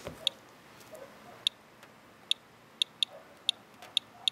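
Radalert Inspector Geiger counter clicking at irregular intervals, about eight sharp clicks, each one a detected radiation count, as it measures a rain-soaked filter swipe.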